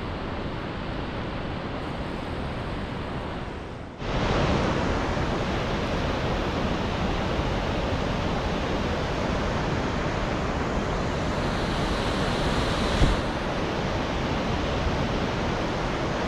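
Steady rushing noise of moving water below a dam, with wind on the microphone; about four seconds in it jumps louder and brighter, and near the end a single short knock sounds.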